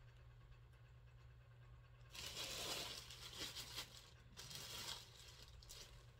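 Crinkling and rustling of packaging as a new handbag is handled. It starts about two seconds in with a loud stretch of about a second, then comes in two shorter bursts, near three and a half and near five seconds in, over a faint low hum.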